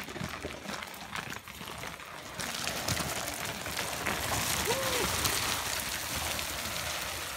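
Gravel and stones crunching and scraping under a dead wild boar carcass dragged by a rope along a stony track, with footsteps. The scraping grows louder about two and a half seconds in.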